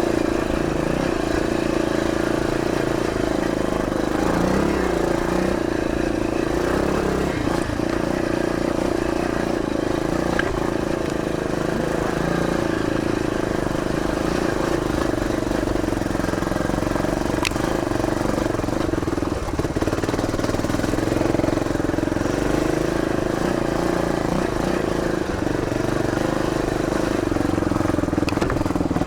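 A 1981 Yamaha XT500's air-cooled single-cylinder four-stroke engine running under way at fairly steady revs while the bike is ridden on a gravel track.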